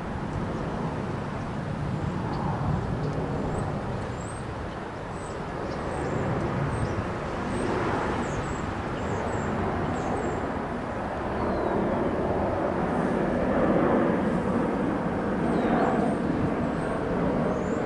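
Rumble of a distant train approaching on electrified main-line track, a steady low noise that slowly grows louder over the second half, with small birds chirping now and then.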